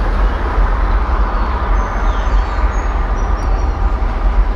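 Train running with a steady, loud low rumble. A few faint, short high chirps come through in the middle.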